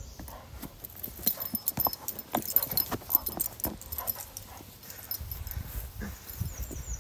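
Black Labrador playing with a rubber Chuckit ball: a run of irregular clicks and taps, thickest a second or two in, with a low rumble toward the end.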